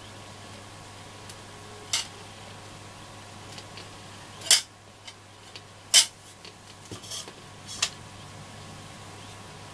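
A few sharp metallic clicks and knocks from handling a transistor radio's metal chassis, the two loudest about four and a half and six seconds in, over a steady low hum.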